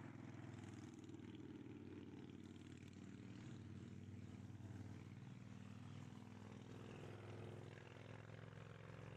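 Faint, steady low hum, like a distant engine, with no clear change.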